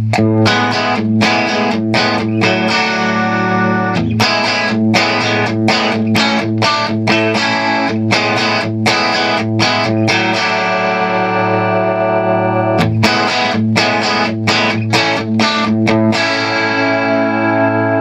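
Electric guitar chords picked in a steady rhythm, the chords ringing and changing a few times, from a Gibson Les Paul Traditional Pro with its humbuckers coil-split to single-coil, played through a Mesa/Boogie Triaxis preamp on its rhythm green channel.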